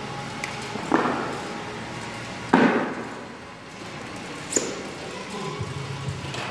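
Barbell weight plates being handled on the bar's sleeve: three separate metallic clanks about two seconds apart, the middle one loudest.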